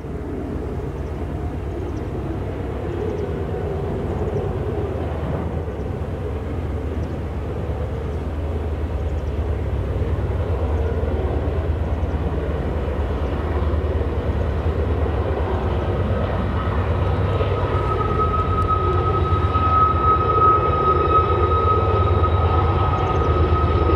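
BNSF freight train's diesel locomotives climbing the grade, a steady low rumble that grows louder as they draw near. In the last few seconds a steady high-pitched whine joins in.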